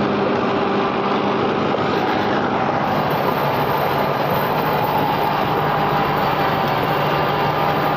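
Mahindra 555 Power Plus tractor's diesel engine running steadily under load, driving a Sonalika rotavator whose blades churn through the soil.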